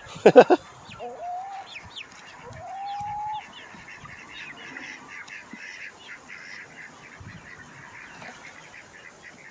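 Chickens calling: a loud short squawk right at the start, two longer drawn-out calls in the next few seconds, then a steady soft chatter of many short clucks and calls from the flock.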